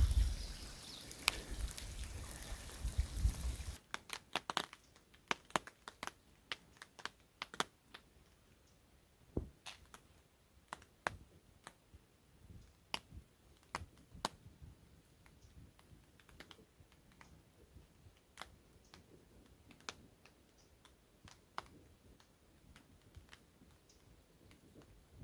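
Wind buffeting the microphone with a low rumble for the first few seconds. It cuts off abruptly to a quiet background with scattered, irregular light ticks and taps.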